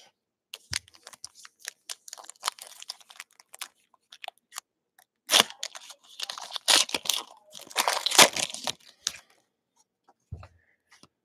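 Wrapper of a 2019-20 Panini Prizm basketball retail pack being crinkled and torn open by hand. Light crackling comes first, then louder tearing and crinkling in the middle, and a soft knock near the end.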